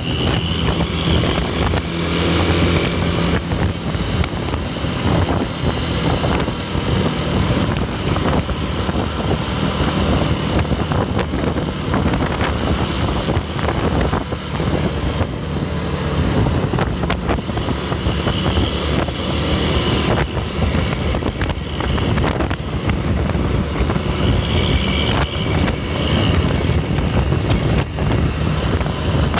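Steady, loud engine and road noise of a coach driving at speed, heard from a vehicle following close behind it.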